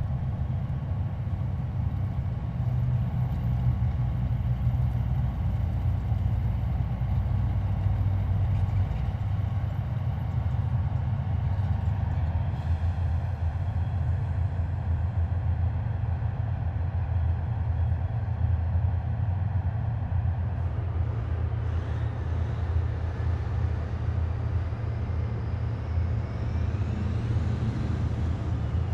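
Heavy military vehicles driving past in a column, their engines making a steady low rumble. A high whine comes in partway through and rises in pitch near the end.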